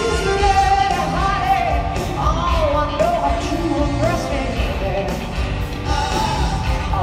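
Live band music with a female lead vocal singing over electric bass and a steady beat, recorded from the audience in a large arena.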